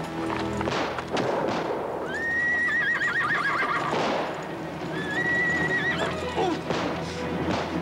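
A horse neighing twice: a high, quavering whinny about two seconds in and another about five seconds in, the second dropping in pitch as it ends. Hoofbeats sound in the first second or so.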